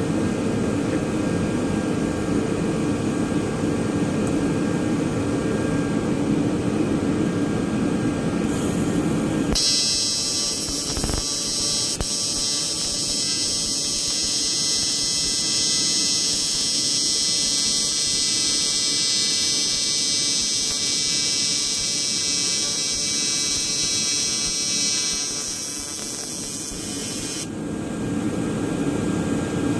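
A steady fan-like hum, then about ten seconds in an AC TIG welding arc on aluminium starts abruptly and buzzes steadily for about eighteen seconds before cutting off near the end.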